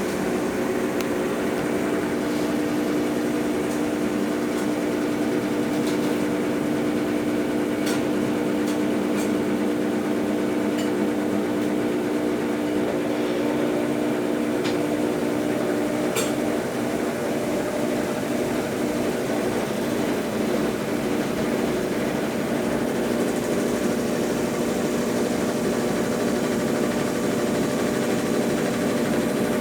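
Consul Facilite 10 kg washing machine running its wash stage after a mechanical overhaul: a steady motor hum with a few light clicks, the pitch of the hum shifting a little about halfway through.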